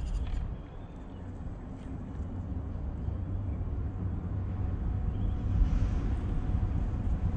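MN82 scale RC pickup truck's small electric motor and drivetrain running at low speed as it crawls over dry pine needles and twigs, heard as a steady low rumble. It dips about half a second in, then grows gradually louder.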